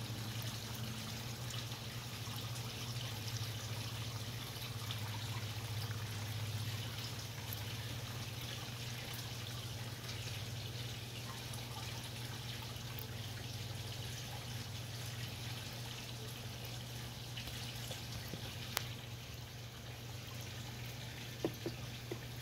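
Water trickling and splashing steadily into a koi pond, over a steady low hum, with a couple of brief clicks near the end.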